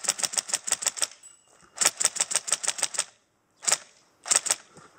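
Airsoft rifle firing in rapid full-auto bursts: a long burst that stops about a second in, a second burst lasting about a second, then a single shot and a quick double shot near the end.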